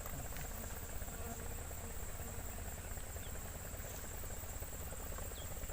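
Steady high-pitched drone of insects such as crickets, over a low rumble.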